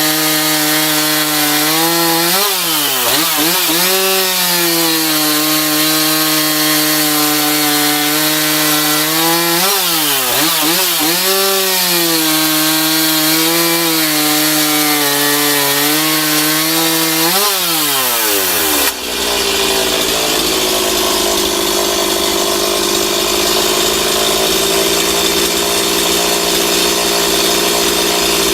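STIHL MS 260 two-stroke chainsaw running at high revs, its pitch dipping and recovering several times as it bogs under load cutting wood. About two-thirds of the way through the sound changes abruptly to a rougher, noisier engine sound.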